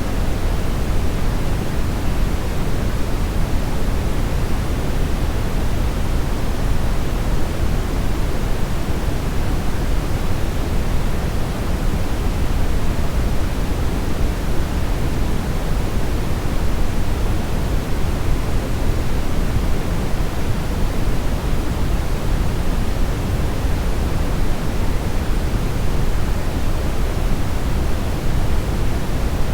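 Steady, unchanging synthetic brownish noise: a constant hiss weighted toward the low end, without tones or events.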